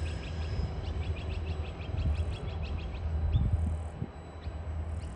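Low rumble of a departing coal train's wagons as the train draws away, with a rapid series of high bird chirps over it that thins out after about three seconds.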